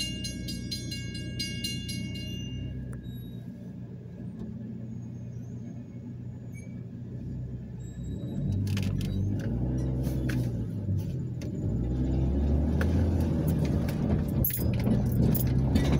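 Railroad crossing warning bell ringing in fast, even strokes, stopping about two and a half seconds in. Under it, a car engine idles, heard from inside the cabin. From about eight seconds in it speeds up as the car pulls across the tracks, with scattered clicks and rattles.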